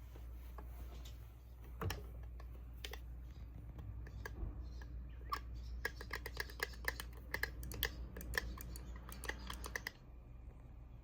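A quick, irregular run of light clicks and taps, thickest in the second half, over a low steady hum.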